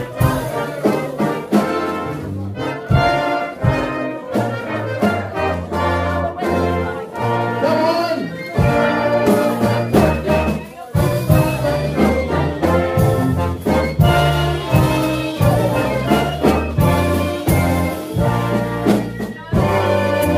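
Big band playing a jazz instrumental, with trumpets and trombones in front over a steady beat.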